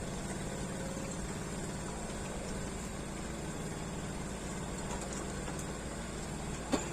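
An engine running steadily at idle, a low even drone that does not change.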